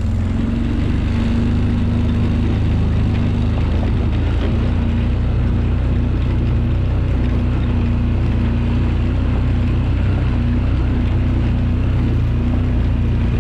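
Four-wheeler (ATV) engine running steadily, a constant even drone.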